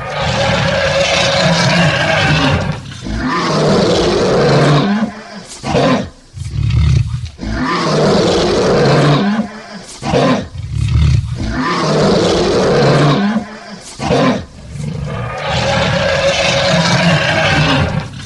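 Lion roaring: a run of long, loud roars one after another, separated by short breaks.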